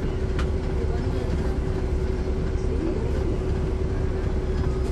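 Caterpillar C13 ACERT diesel engine of a NABI 40-foot transit bus running steadily, heard from the rear seats close to the engine: a deep rumble with a constant whine over it.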